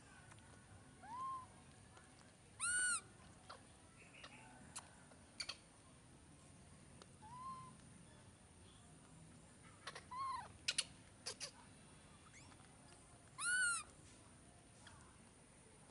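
Baby monkey calling: about five short cries, each rising then falling in pitch, the loudest about three seconds in and near the end, with a few sharp clicks between.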